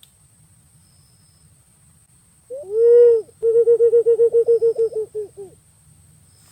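Punai pink green pigeon calling: one drawn-out hooting note that rises and falls, then after a short break a fast run of about a dozen short notes at the same pitch that slow and fade out.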